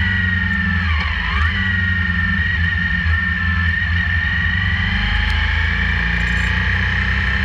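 Motorcycle engine running steadily at road speed over road and wind noise. A high whine dips and rises back about a second in.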